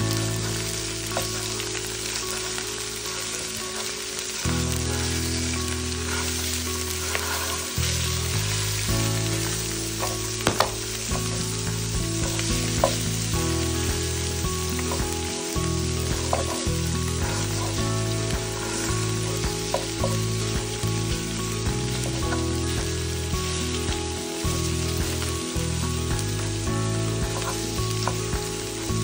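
Salmon fillets sizzling as they fry in a non-stick pan, with a plastic slotted spatula clicking and scraping against the pan now and then as it breaks the fish into pieces.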